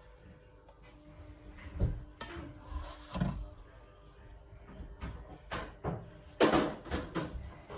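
Kitchen clatter: a string of separate knocks and bumps, like cupboard doors and utensils being handled, with the loudest knock about six and a half seconds in.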